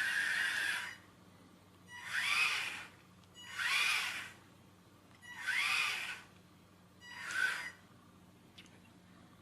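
Elegoo V3 robot car's DC gear motors whirring in short spurts, each rising in pitch as the motors spin up: one run stops just under a second in, then four more brief runs follow, as the car is driven by presses on its infrared remote.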